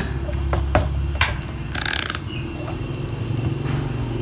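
A few sharp clicks from a handheld digital multimeter's rotary selector dial being turned and the meter handled, then a short loud hiss about two seconds in, over a steady low hum.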